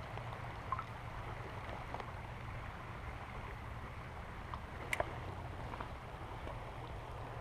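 Faint steady low rumble and hiss of flowing creek water, with a few faint clicks.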